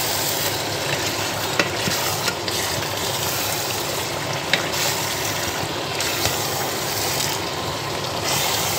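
Meat and cow skin sizzling in hot stew sauce in a steel pot while a wooden spatula stirs it, with a few sharp clicks of the spatula against the pot.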